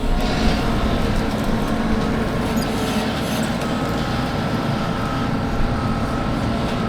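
Nexat combine harvester running steadily while harvesting canola: a dense mechanical drone with a steady whine over it.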